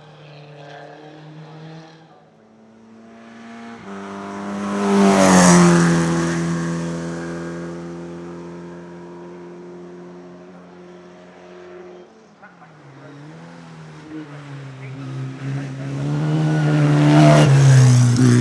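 Hillclimb race car engines at full throttle passing close by at speed. Two loud pass-bys, about five and seventeen seconds in, each with the engine note dropping in pitch as the car goes past.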